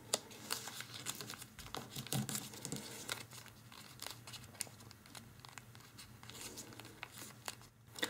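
Faint rustling and crinkling of a folded sheet of origami paper in the fingers, many small crisp ticks at an irregular pace as flaps are pressed and tucked into place.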